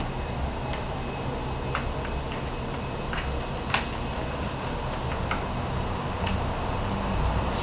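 Light, irregular plastic clicks and knocks from a cat's Play Circuit ball-track toy as a cat paws at the ball inside the ring, about eight clicks spread unevenly, over a steady low background noise.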